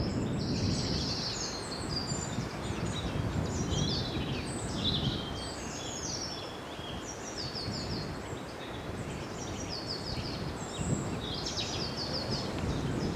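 Small songbirds singing, a busy run of short chirps and quick descending trills from more than one bird, over a steady low background rush.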